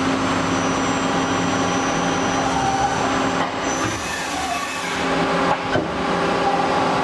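Hardinge Cobra 65 CNC lathe running under power: a steady mechanical hum with several steady whining tones, dipping briefly about three and a half seconds in, with a couple of sharp clicks a little over five seconds in.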